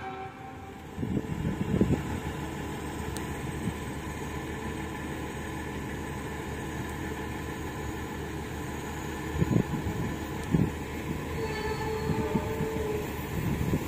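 Argo Semeru passenger train approaching from a distance: a steady low rumble building along the line, with a few low thumps.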